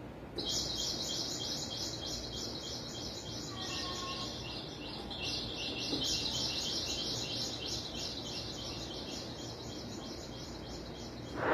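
Steady rhythmic high-pitched chirping, about five chirps a second, starting about half a second in, with a brief break near the middle, over a quiet outdoor background, with a few fainter lower chirps about four seconds in.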